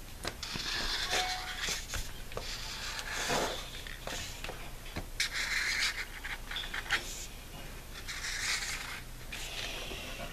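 Felt-tip marker drawn across a paper plate, a dry scratchy rubbing in about four long strokes, with a few small clicks between them.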